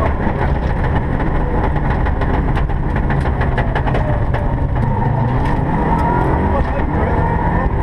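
Rally car's engine running hard at stage speed, heard from inside the cockpit along with road and drivetrain noise, and a scatter of sharp clicks in the middle.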